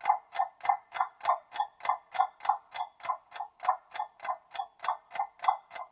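Quiz countdown-timer sound effect: a clock ticking steadily, about three ticks a second.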